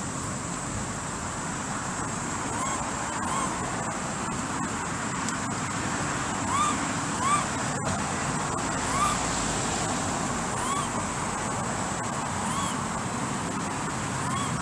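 Steady road-traffic noise, with short rising-then-falling calls from an animal repeating about once a second.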